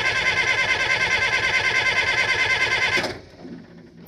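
The diesel engine of a Bobcat 825 skid steer being cranked by its starter in an even, fast pulsing rhythm, cold. The cranking stops abruptly about three seconds in without the engine catching, and a sharp click follows near the end.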